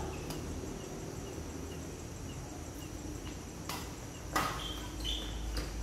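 Badminton rally: several sharp cracks of rackets striking the shuttlecock, spaced about a second apart in the second half, the loudest a little past four seconds in.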